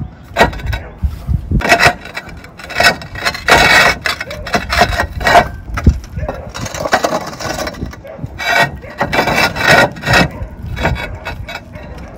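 Cement roof tiles being slid back into place by hand, scraping and knocking against each other in a series of irregular strokes.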